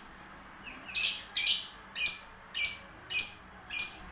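Lovebird calling: six short, harsh, high-pitched chirps, about two a second, starting about a second in.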